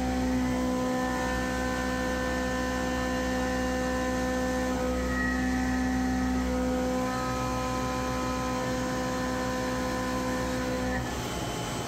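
SYIL X7 CNC mill cutting with a 1/2-inch four-flute end mill at about 3,800 rpm on an adaptive toolpath: a steady whine pitched at the tooth-passing rate, with its overtones, over a low hum from the shop's running phase converter. The whine drops away about a second before the end as the cut eases off.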